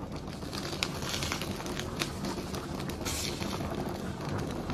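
Pork-trotter broth boiling hard in a wok over a gas flame: a steady rush of bubbling, full of small irregular pops and ticks as the foam keeps rising.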